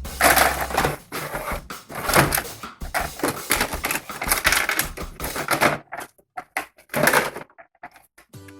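Hard plastic toy pieces clicking, clattering and rustling as they are handled and fitted together, in quick irregular bursts that stop for a moment about six seconds in, with one more burst shortly after.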